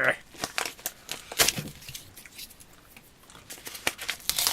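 Small metal drill bits clicking and plastic packaging rustling as the bits are handled and taken out of their package, in a run of short, irregular clicks.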